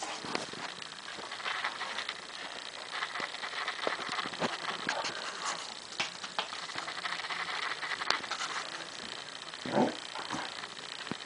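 Old English Sheepdog scrabbling on a tiled floor as it plays with a lemon, its claws clicking and feet scuffing in a rapid, irregular patter. A brief, louder low sound stands out near the end.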